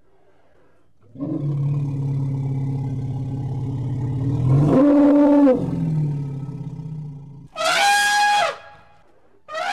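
Elephant growling in a long, low rumble that rises in pitch for about a second midway, then two short, high trumpet calls near the end.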